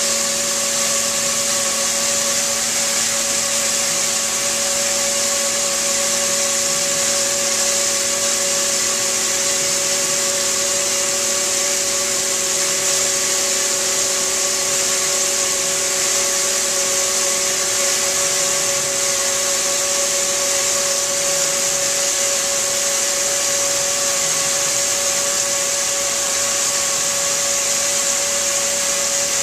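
CNC stone router's spindle driving a diamond polishing wheel along a countertop edge under water spray: a steady machine whine with several fixed tones over a strong, even hiss.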